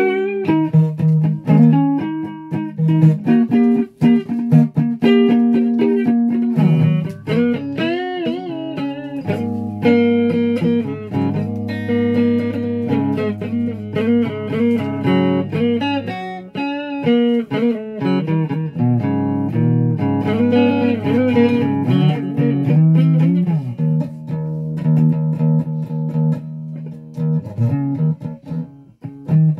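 Flying V electric guitar played solo: a run of single notes and chords, with held low notes and string bends that make the pitch curve and waver.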